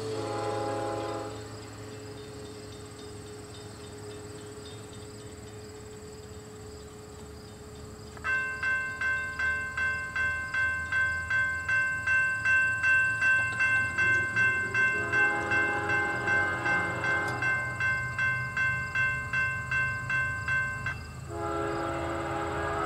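Horn of an approaching CP Rail ES44AC freight locomotive sounding for a grade crossing: a blast that ends about a second in, a long blast in the middle, and another starting near the end. From about eight seconds in, a crossing warning bell clangs about twice a second, stopping just before the last blast, over a low steady rumble.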